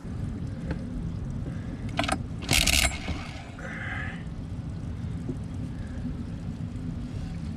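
Honda 9.9 hp outboard motor running, with a rapid low-pitched pulsing that starts abruptly. A loud brief hiss cuts across it about two and a half seconds in. The outboard does not fire on its own and runs on starting fluid, its carburettor main jet plugged.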